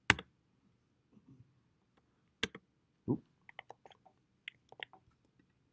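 Computer keyboard typing: a few separate sharp key taps, then a quicker, irregular run of lighter keystrokes from about three and a half seconds in.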